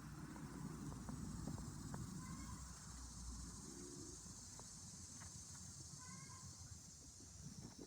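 Pilgrim goose giving two short, soft peeps, about two seconds in and again near six seconds, over a faint low crackling rustle.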